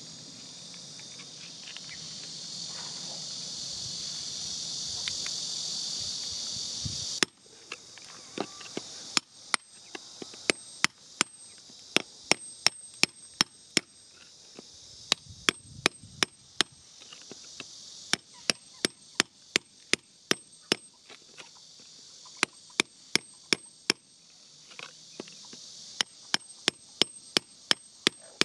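A steady high insect buzz, then, from about seven seconds in, a metal hand tool striking and chipping at hard, stony soil: sharp clicks in runs of several strikes, with the buzz fainter behind them.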